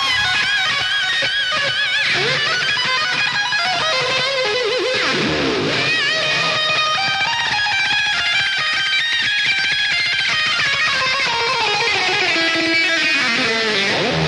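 Loud rock music led by electric guitar, its notes wavering with wide vibrato and sliding in pitch; about five seconds in a note swoops far down and back up.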